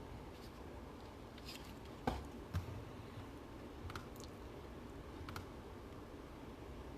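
A few scattered light clicks and taps, the two loudest about two seconds in and half a second apart, over a low steady room hum.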